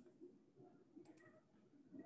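Near silence: faint room tone, with a quick pair of faint clicks about a second in.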